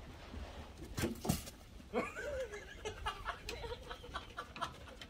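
A person chuckling softly in short breathy bursts, with a short wavering giggle about two seconds in.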